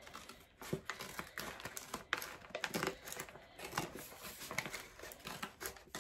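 Paper mailer envelope crinkling and rustling in the hands as it is opened and its contents pulled out, in short irregular bursts.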